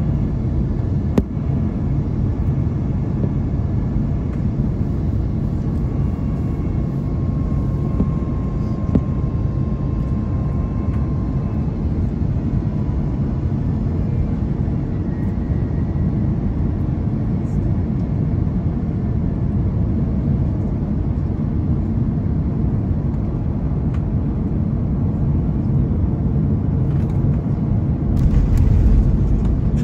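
Cabin noise of an Airbus A330-900neo on final approach: a steady low rumble of airflow and Rolls-Royce Trent 7000 engines. In the last couple of seconds the rumble grows louder as the aircraft touches down on the runway.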